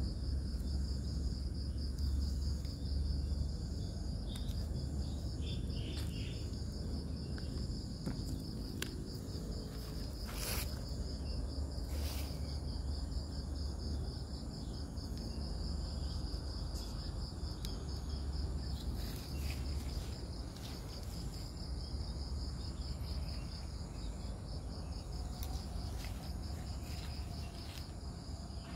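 Insects trilling steadily in a high, rapidly pulsing tone, over a low rumble, with a couple of sharp clicks about ten and twelve seconds in.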